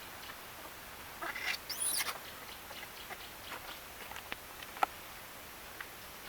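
Young vervet monkeys giving high-pitched squeaks, loudest in a short rising flurry about a second in, over a steady thin chirping, with a few sharp clicks later on.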